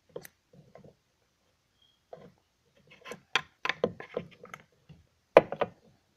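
Small plastic toy figurines tapping and clicking against a hard surface as they are handled. A few scattered taps come first, then a quick run of taps in the middle, and the sharpest knock comes near the end.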